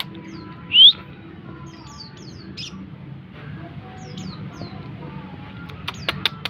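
Konin bird singing: one loud rising chirp about a second in, a few short high notes, then a rapid chattering run of sharp clicking notes near the end. A low steady hum lies underneath.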